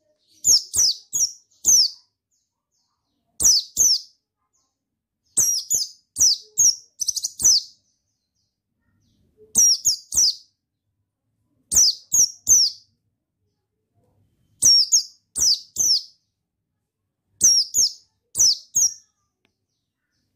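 A white-eye (pleci buxtoni) calling: short phrases of three to five quick, high chirps, repeated every two to three seconds with pauses between.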